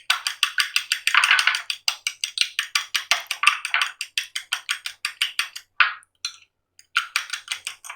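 A raw egg being beaten in a bowl: fast, steady clicking of the utensil against the bowl, about eight strokes a second, with a short pause near the end.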